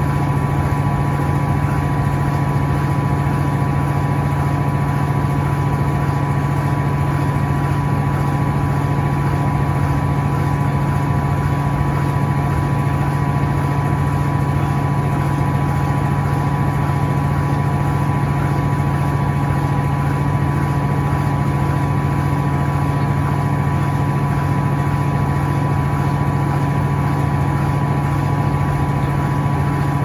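Electrolux Turbo Acqua Jet direct-drive top-loading washing machine spinning at full speed in its spin cycle: a steady hum with a constant whine over it.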